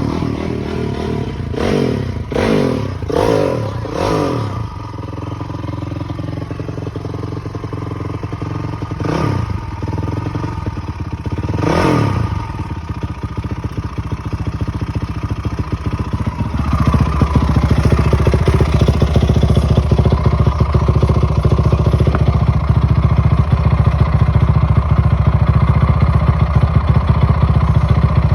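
Honda CRF450R single-cylinder four-stroke dirt bike engine blipped five or six times in quick succession, revved twice more a few seconds apart, then running steadily and louder through the second half.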